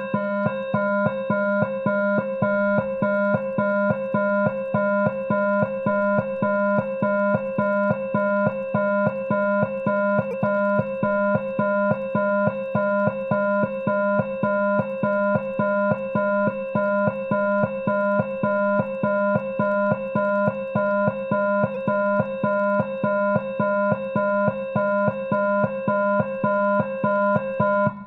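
Midland WR-300 weather alert radio sounding its alert siren in siren-test mode: a loud electronic alarm tone pulsing evenly, a little over twice a second.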